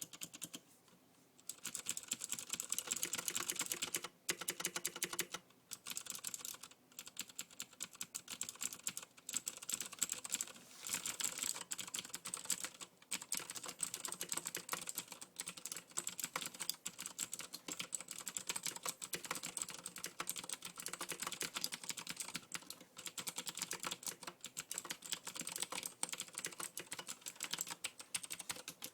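Steady typing on a Leopold FC700R mechanical keyboard with clicky blue switches: a dense, fast stream of key clicks broken by short pauses, the longest about a second in.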